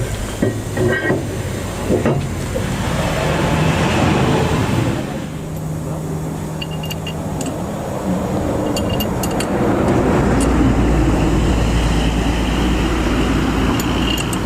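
Road traffic going by, swelling twice as vehicles pass, the second time with a heavy low rumble. A few light clicks come through near the middle and near the end.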